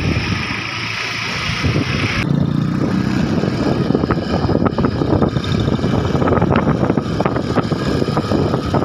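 Motorcycle engine running while riding along a road, with wind buffeting the microphone. About two seconds in, the high hiss drops away and the low rumble of engine and road grows stronger.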